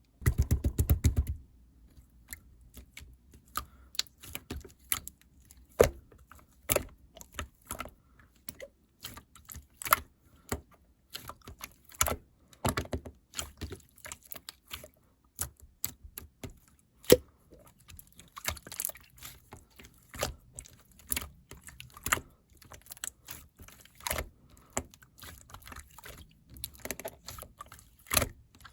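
Gold glitter slime being squished and worked by hand, giving irregular sharp clicks and pops, with a denser, heavier squelch in the first second or so.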